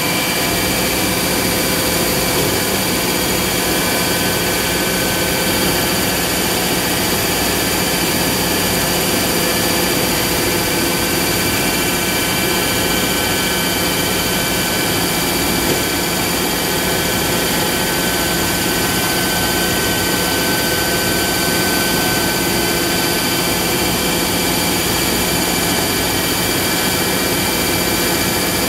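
Myford MG12 hydraulic cylindrical grinder running: a steady hum and hiss with several steady whining tones from its motors and hydraulic pump, unchanging throughout.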